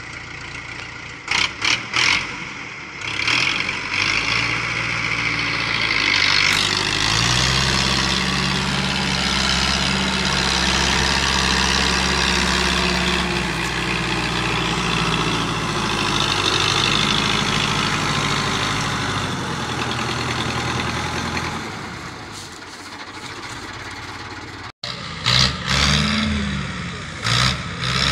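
Fiat 640 tractor's four-cylinder diesel engine running under load as it pulls a loaded sugarcane trolley. Its note grows stronger about seven seconds in, then fades out about twenty seconds in as the tractor moves away. There are a few brief loud noises near the start and near the end.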